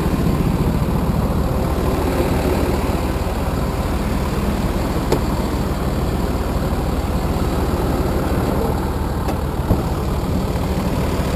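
Mercedes-Benz diesel engine of a Freightliner M2 tow truck idling steadily, with two faint clicks about five and ten seconds in.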